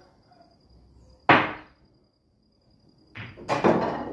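A cue tip striking the cue ball hard in an elevated-cue curve (massé) shot: one sharp, loud click about a second in. Near the end the rolling ball hits the rail, a shorter cluster of knocks.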